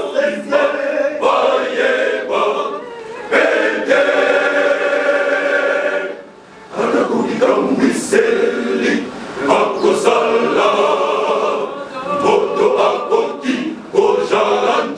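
Men's choir singing unaccompanied, with a short break about six seconds in.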